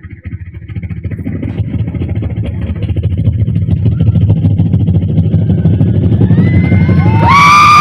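A man imitating a helicopter with his mouth: a fast chopping, rotor-like pulsing rumble that grows louder over the first few seconds and then holds, with a high whine joining near the end.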